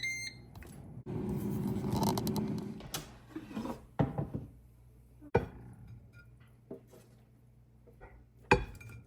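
Air fryer beeping at the start, at the end of its cooking cycle, followed by a stretch of kitchen clatter and a few sharp knocks as the basket is handled and food is served.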